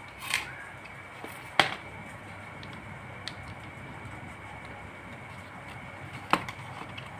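Hands handling a stand fan's plastic neck housing and wiring: a few sharp plastic clicks and knocks, the loudest about a second and a half in and another near the end, over a faint steady high tone.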